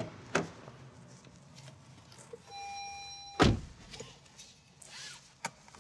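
Car door of a Lexus NX being opened and shut: light latch clicks near the start, a short electronic beep of about a second, then the door closing with a heavy thump about three and a half seconds in, the loudest sound, followed by a small click.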